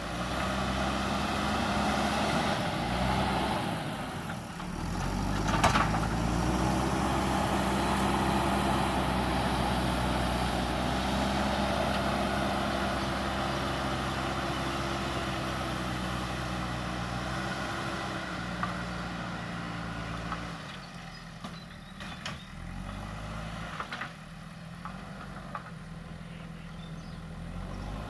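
Diesel engine of a JCB earthmoving machine working, its pitch rising and falling as it is loaded and revved. There is a sharp metallic knock about six seconds in. From about twenty seconds in the engine drops to a lower, quieter run with a few scattered clanks.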